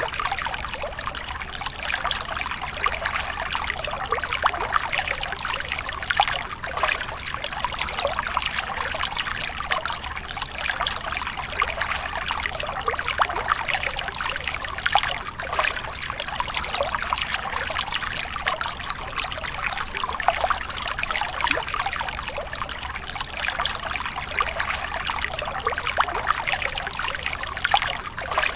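A thin stream of water falling from a rock ledge into a small shallow pool, trickling and splashing steadily.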